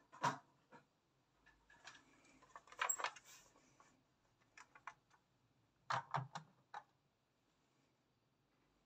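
Plastic model buses and their cardboard boxes being handled and set down on a table: scattered clicks and knocks, in small clusters about a third of a second in, around two to three seconds, and around six seconds.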